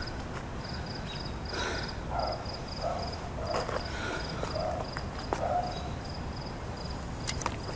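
Cricket chirping steadily outdoors: short high chirps in quick pairs, repeating evenly, over a low rumble.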